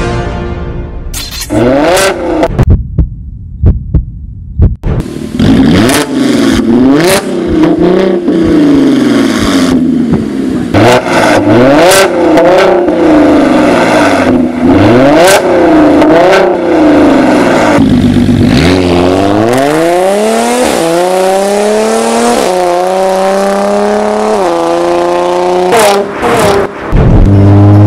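Audi S5's supercharged 3.0 V6 through an aftermarket Armytrix valvetronic cat-back exhaust, revved hard again and again, its pitch swinging up and down about once a second, with sharp pops and cracks between revs. Near the end it accelerates through several gears, each rising pull ending in a sudden drop in pitch at the upshift.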